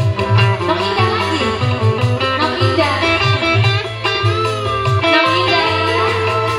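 Live dangdut band music: an electric guitar stands out over a steady bass and drum beat.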